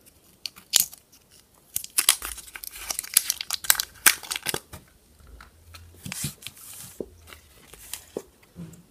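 A Hi-Chew chewy candy's paper wrapper being peeled open and crumpled by hand: a run of sharp crinkling and tearing, busiest in the middle, then quieter rustling.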